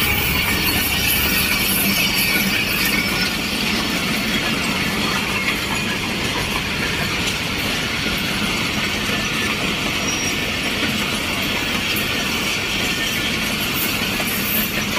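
Pakistan Railways express passenger train running past at speed, its coaches' wheels giving a steady noise on the rails.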